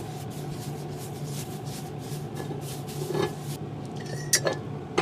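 Light metal-on-metal clinks from work on a Nambu cast-iron kettle during colouring: a soft knock about three seconds in, then two sharp ringing clinks near the end, over a steady low hum.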